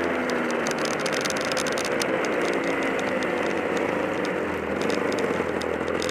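Easykart's two-stroke kart engine running at racing speed, heard from an onboard camera on the kart, with rattling and wind noise over the engine.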